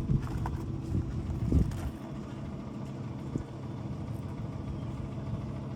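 John Deere 2155 tractor's diesel engine running at a steady speed, with a few knocks in the first two seconds.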